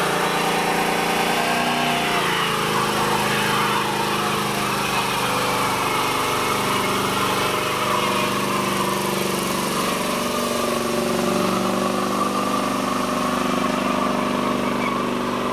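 Classic convertible muscle car doing a burnout: the engine is held at high revs with the rear tyres spinning against the pavement. The sound is loud and steady, with the pitch wavering only slightly.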